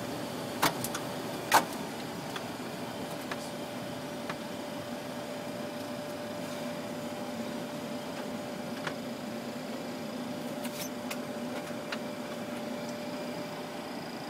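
Steady hum inside a Boeing 737-300 cockpit with its engines running, carrying one held tone. There are two sharp clicks, about half a second and a second and a half in, as switches on the overhead panel are flipped, and a few fainter clicks later.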